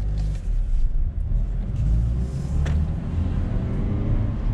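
2018 Mazda3's 2.0L Skyactiv four-cylinder engine and road rumble heard from inside the moving car; the engine note slowly rises as the car accelerates. A single sharp click a little past halfway.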